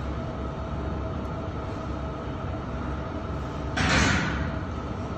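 Steady gym room noise: a low rumble with a faint hum, most likely the hall's ventilation, and a louder rushing noise lasting about a second near the end.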